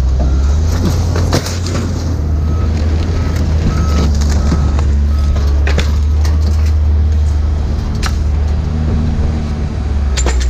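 A vehicle engine running with a steady low drone, with a few sharp clicks and knocks over it.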